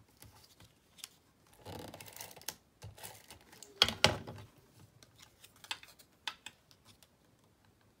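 Handheld adhesive tape runner drawn across cardstock, laying double-sided tape, with paper handling and light clicks; a sharp rasping snap about four seconds in is the loudest sound.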